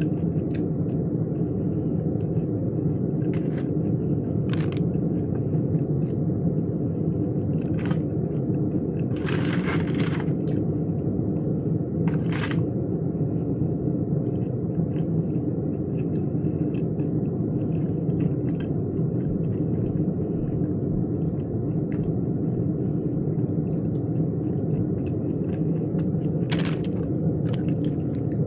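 Close-miked chewing and crunching of food, with scattered sharp clicks and a few longer crunches, over a steady low hum.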